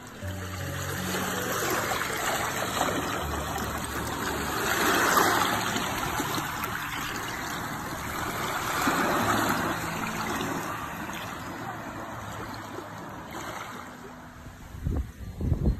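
Small waves lapping and washing up a pebble beach, swelling twice as the water runs up the stones. A few low thumps sound near the end.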